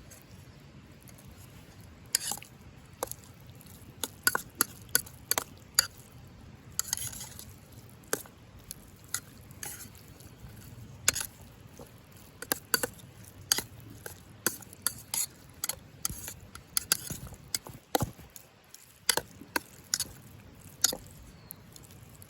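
Utensils tapping and scraping against a cooking pot or bowl in irregular clicks, as food is stirred and mixed.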